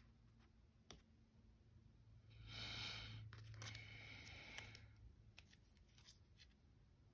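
Faint rustling of paper stickers and die-cut pieces being handled, mostly for a couple of seconds in the middle, with a light click about a second in.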